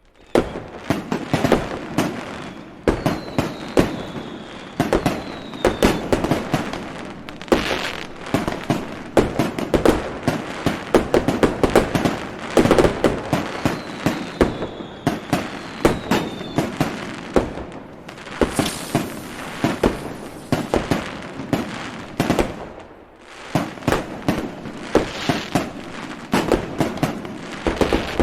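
Fireworks going off in a dense, continuous barrage of bangs, pops and crackling. Two high whistles, each falling slightly in pitch, sound over it: one a few seconds in and one about halfway through.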